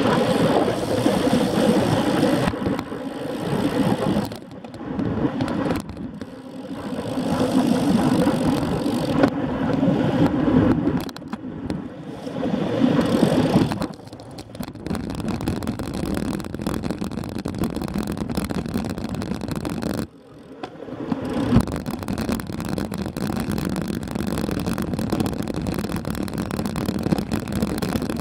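Wind and road noise of a bicycle ridden through town streets, picked up by a bike-mounted camera's microphone, gusting unevenly at first. About halfway through it turns steadier and quieter as the bike slows onto paving stones and coasts.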